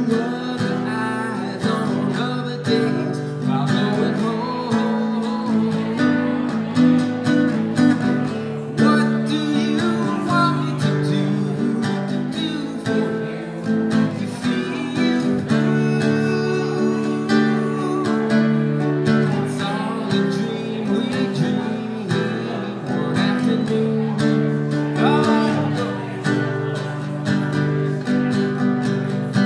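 Acoustic guitar strummed live, with a man singing at times.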